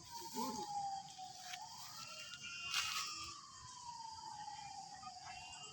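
Siren wailing: one tone sweeps slowly down, up and down again over a few seconds, then starts to climb once more near the end. A few sharp clicks sound over it, the loudest about three seconds in.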